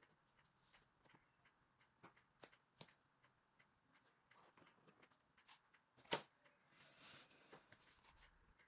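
Faint handling sounds of a plastic ruler stencil being laid on and shifted across a notebook page: scattered light taps and paper rustles, with one sharper click about six seconds in.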